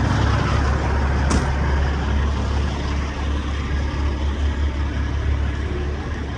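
Truck engine running with a steady low drone, heard over cab and road noise, with a single sharp click about 1.3 s in.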